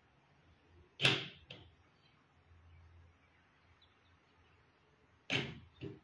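Car door-lock actuator working a barrel bolt, firing twice about four seconds apart: each stroke is a short, sharp clunk followed half a second later by a lighter knock.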